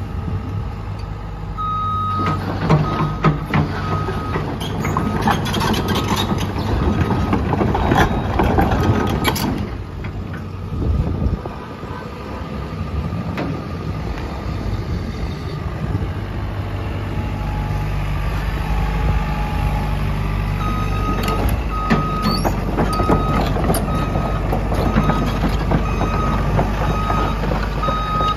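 JCB JS131LC Plus tracked excavator's diesel engine running steadily, with knocks and clanks through the first ten seconds as the hydraulic boom and bucket are worked. Its travel alarm beeps repeatedly for a couple of seconds near the start and again through the last third as the machine tracks.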